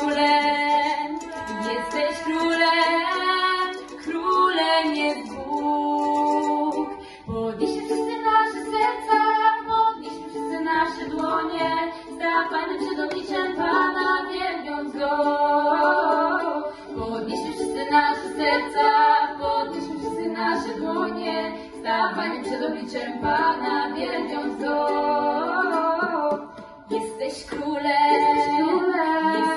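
Girls' voices singing a song with ukulele accompaniment.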